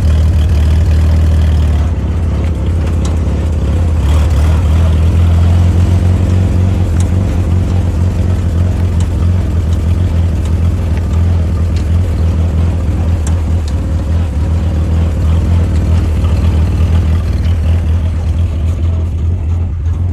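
Willys flat fender Jeep engine running steadily, with a few faint sharp clicks scattered through it. The Jeep has a weird noise whose source is being traced.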